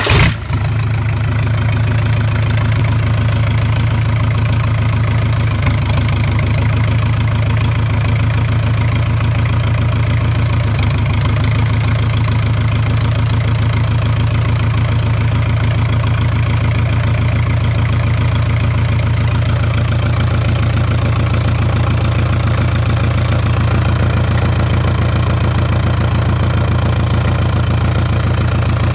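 Volvo Penta MD22 four-cylinder marine diesel firing up at once and settling into a steady idle.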